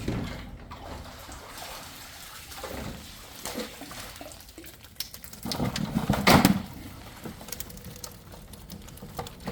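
Water splashing and sloshing, with a louder splash about six seconds in.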